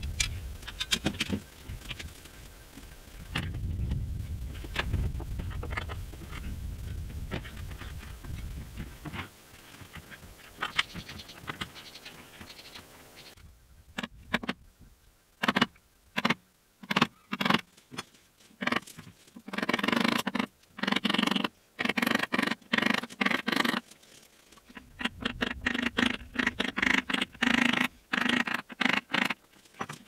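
Wood chisel cutting a shallow hinge mortise in an incense cedar door post: a string of short, sharp chops and scraping paring cuts, packed into quick runs in the second half. The first half holds a low rumble with scattered light clicks.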